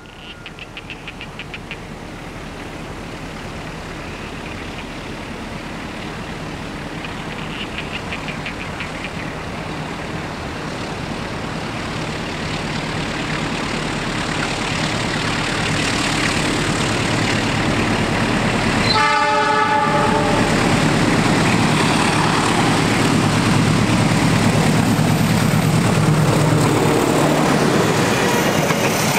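A train approaching, its rumble growing steadily louder over the whole stretch, with a brief break about two-thirds of the way through.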